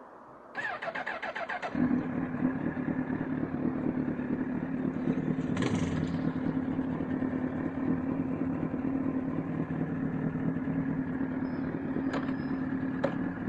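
Motorcycle engine started with the electric starter: the starter cranks for about a second, then the engine catches and settles into a steady idle.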